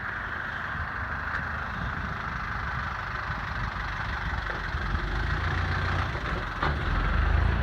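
Steady road traffic noise with a motor vehicle's engine running close by, its low rumble growing louder from about five seconds in.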